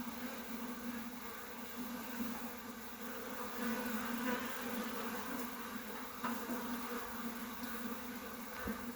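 Honeybees buzzing in a steady, low hum around an opened hive, with a couple of faint knocks in the second half.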